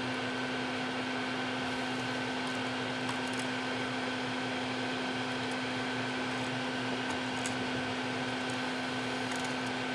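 Steady machine hum, like a fan, with a constant low tone and a fainter higher tone over an even hiss. A few faint small clicks come from wire being handled.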